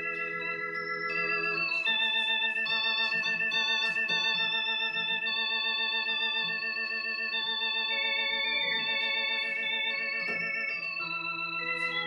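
Yamaha YC-20 combo organ playing sustained chords with a moving melody on top, with the vibrato on. It uses a bright registration: the 16' drawbar nearly full and the 8' and 2' drawbars fully out.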